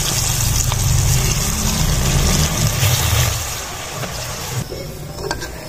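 Potato-spinach pakora batter being dropped into hot oil in a kadai, the oil sizzling with a steady hiss over a low rumble. Both fall away sharply about four and a half seconds in.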